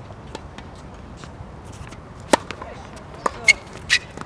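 Tennis ball struck by a racket and bouncing on a hard court during a rally: sharp pops, the loudest about halfway through, then three or four more in quick succession near the end, two of them with a short squeak.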